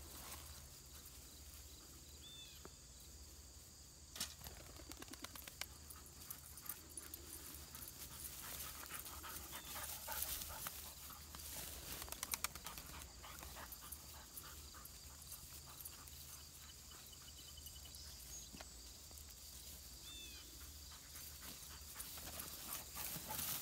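Young Small Münsterländer pointer panting, with a few short high chirps now and then.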